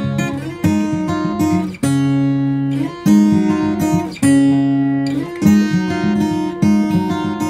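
Background music: strummed acoustic guitar chords, a new chord struck roughly every second.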